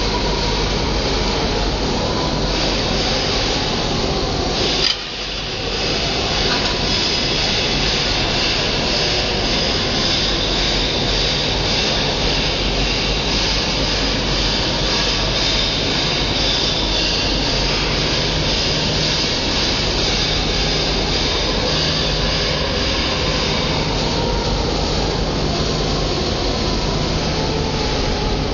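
Loud, steady machinery noise, with a brief drop in level about five seconds in.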